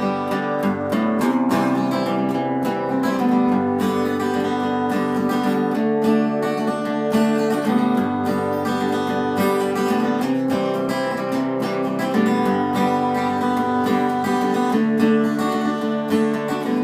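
Strummed acoustic guitar playing a bluegrass-style instrumental break between sung verses, with no singing.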